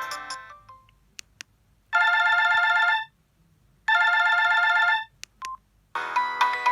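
Samsung SGH-D600 mobile phone playing preloaded ringtones through its loudspeaker. A melodic ringtone fades out, then a classic telephone-style ring sounds twice, each a one-second electronic warbling ring. A couple of faint clicks and a short beep come between the tones, and the next melodic ringtone starts about six seconds in.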